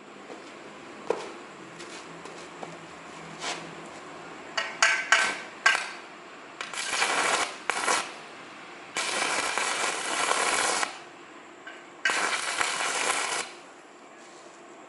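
Inverter stick welder: the electrode is tapped on the metal a few times to strike the arc. The arc then burns in four bursts of crackling hiss, the longest about two seconds.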